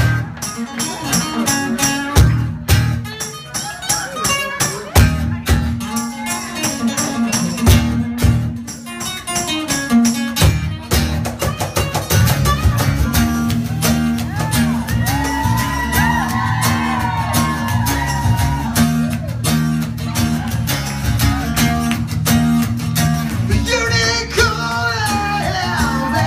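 Live band music: strummed acoustic guitars over a steady electric bass line, with sharp percussive hits through the first half. A voice comes in singing near the end.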